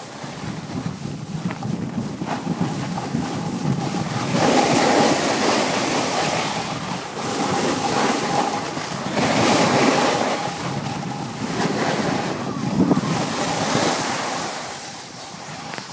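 Skiing or snowboarding edges sliding and scraping over hard-packed snow in long, surging swishes, with wind noise on the microphone.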